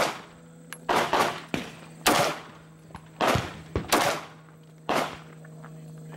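A semi-automatic pistol firing single shots at an uneven pace, about eight shots, each trailing off in a short echo.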